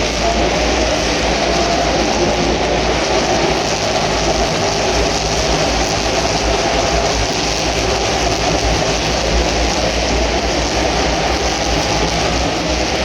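NASCAR Cup cars' V8 engines running laps as a pack, a loud continuous din whose engine note slowly rises and falls.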